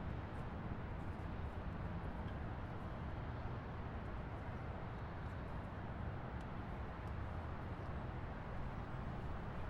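Distant highway traffic heard as a steady low rumble of passing vehicles and tyre noise, with no single vehicle standing out.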